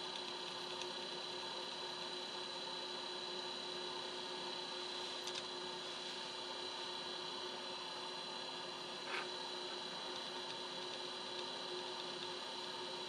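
Steady electrical hum made of several fixed tones, with a faint hiss underneath. Two faint ticks come about five and nine seconds in.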